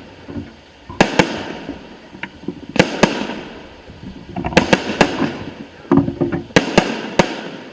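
Aerial firework shells bursting: about ten sharp bangs, several in quick pairs, each trailing off in a long echoing rumble, with a spell of crackling in the middle.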